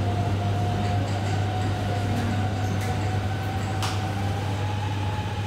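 Interior of a Hanoi Metro Line 2A train slowing into a station platform: a steady low hum and rumble with a thin steady whine above it. There is a single sharp click about four seconds in.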